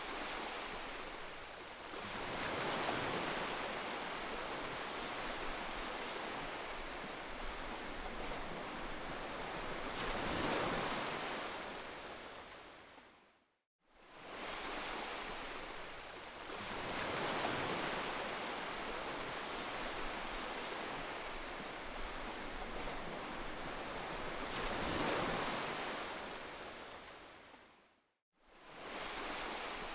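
Heavy rain, a steady rushing hiss that swells and eases every few seconds. It fades out to silence and back in twice.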